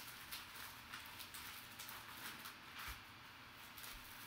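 Thin black plastic bag crinkling and rustling as hands rummage through it, in faint, irregular crackles.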